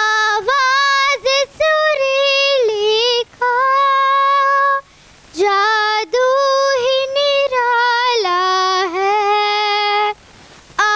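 A young girl singing solo and unaccompanied into a handheld microphone, Indian classical style: held notes with vibrato and quick ornamented runs. She breaks off briefly twice, around the middle and near the end.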